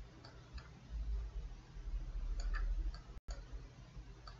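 Faint, scattered computer mouse clicks, about half a dozen sharp ticks, over a low steady hum and rumble, with a brief dropout about three seconds in.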